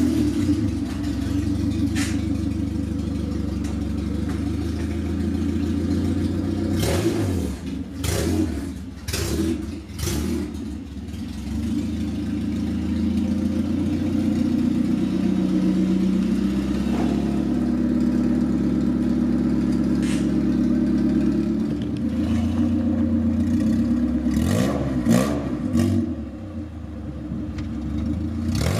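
Honda CRX Si's four-cylinder engine running as the car drives off slowly, its note rising and falling a little with the throttle. A few sharp knocks come in between.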